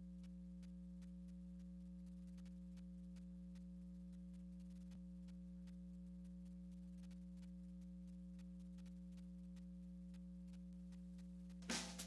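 A faint, steady electrical hum with light regular ticking, about three ticks a second. Theme music with drums starts loudly just before the end.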